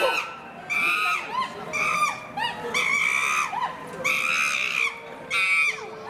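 Chimpanzees screaming: a series of loud, high-pitched screams about once a second, the agitated calling of a squabble within the group.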